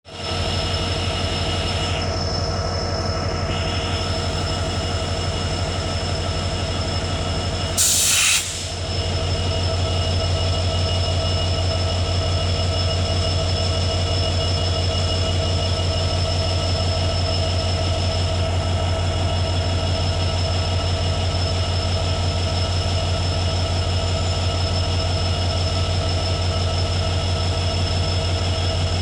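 WDG4 diesel-electric locomotive (16-cylinder two-stroke EMD engine) running, a steady loud drone with a constant high whine over it. A short loud hiss cuts in about eight seconds in.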